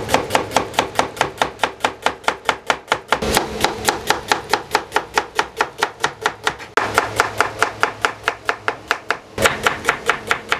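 Chef's knife slicing red onion on a wooden cutting board, a quick even run of cuts about five a second, each stroke knocking the blade against the board.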